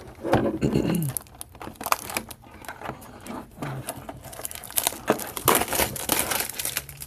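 Crinkling, rustling handling noise with scattered clicks as a new power supply's cables and connectors are handled and plugged into a power supply tester.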